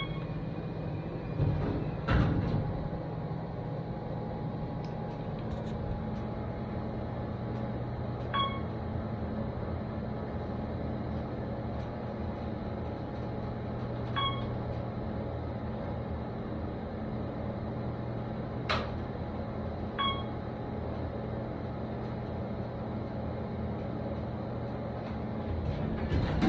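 Hotel passenger elevator: the doors slide shut about two seconds in. The car then runs with a steady low hum as it descends, a short chime sounds three times about six seconds apart as it passes floors, and there is one sharp click in between. Near the end the doors begin to open.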